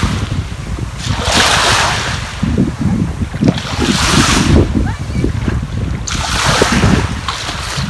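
Sea waves washing onto the shore, with a surge of surf hiss about every two and a half seconds, three times, over a gusty rumble of wind buffeting the microphone.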